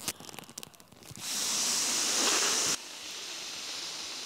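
Foil balloon crinkling as it is drawn out, then breath blown through a straw into the balloon's valve: a steady hiss of air from about a second in that drops quieter near the three-second mark and then builds again.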